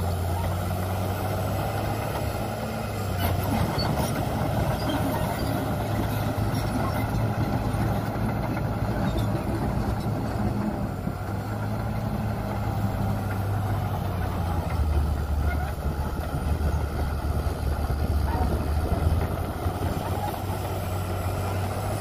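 Crawler bulldozer's diesel engine running steadily as it pushes soil with its blade, a low drone whose note shifts a few times.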